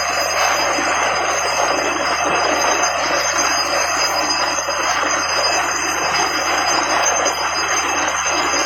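Borewell drilling rig running steadily: a continuous loud rushing, grinding noise with several thin, steady high whines over it.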